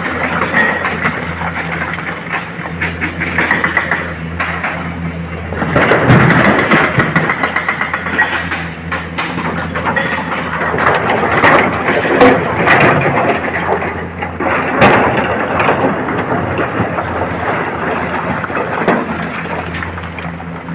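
Heavy diesel machinery running at a quarry loading site: a steady engine drone with louder spells of rattling and several sharp knocks, as an excavator loads rock into a tipper truck.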